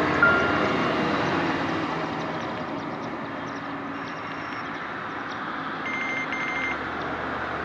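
A Nokia N97 ringtone playing through a Nokia 150's small phone speaker: a steady rushing, hiss-like sound with a few short, high beeps, two of them close together near the end.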